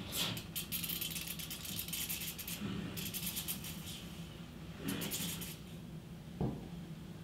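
Washing machine hot-water supply valve opened by its hand wheel, with water rushing through into the new braided hose as a rattling hiss in several spells. A single knock about six and a half seconds in.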